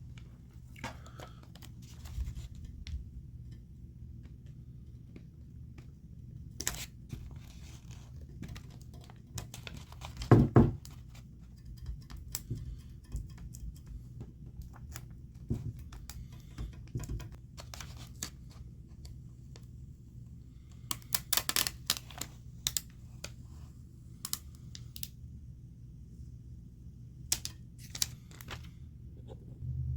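Hand work with decals or masking on a bike frame: paper and tape rustling and tearing, with scattered light taps and clicks and one louder knock about ten seconds in, over a steady low room hum.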